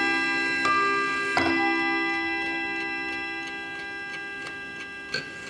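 Vintage 1962 Hermle mantel clock's chime strikes two notes, a higher one and then a lower, louder one, which ring and slowly die away while the clock ticks about three times a second. A short light knock comes near the end.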